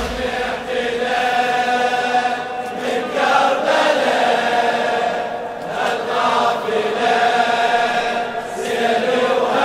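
Large crowd of men chanting a Shia latmiya (Muharram lamentation) refrain in unison, sung phrases breaking and restarting about every three seconds.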